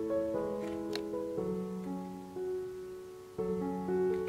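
Background music: a gentle piano melody of held notes, fading a little and starting a new phrase about three seconds in. A couple of faint clicks come in near the start.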